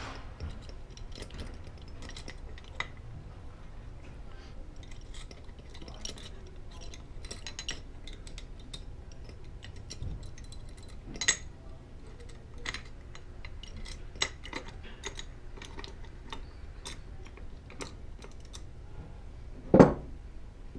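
Metal parts of a gas pressure regulator clicking and clinking as they are handled and fitted together by hand, with one louder knock near the end.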